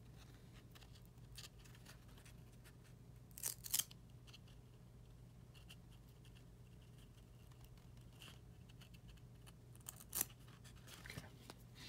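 Faint scrapes of glossy chrome trading cards sliding against each other as a pack is fanned apart: two short scrapes about three and a half seconds in and another about ten seconds in, over a low steady hum.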